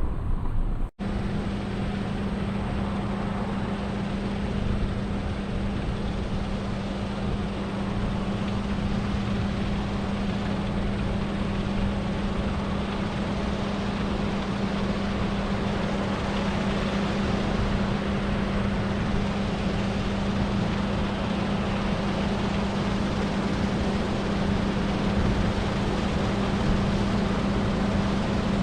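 Heavy diesel farm machinery running steadily, a constant engine drone with a steady hum. The sound drops out briefly about a second in, then carries on unchanged.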